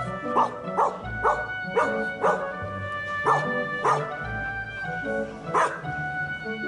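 A dog yipping and whining in short high cries, about eight of them at uneven intervals, over background music.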